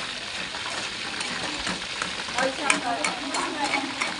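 Chicken wings sizzling in hot oil, with a steady hiss and scattered clicks and scrapes of a utensil stirring them, mostly in the middle.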